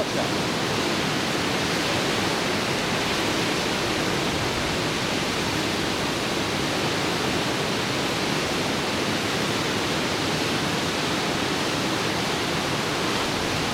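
Rushing river water: a steady, even hiss of fast-flowing water.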